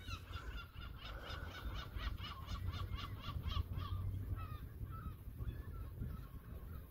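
Birds calling in a rapid run of short, repeated sharp notes, about four a second, fading after a few seconds. A low rumble of wind on the microphone runs underneath.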